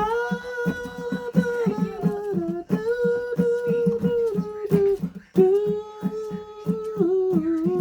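A girl's voice singing long wordless held notes in three phrases, each sliding down at its end, over a steady plucked accompaniment of about four notes a second.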